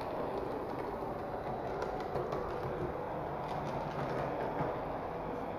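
Model SW1 diesel switcher locomotive running along the layout's track: a steady running sound of its motor and wheels on the rails, with faint scattered clicks.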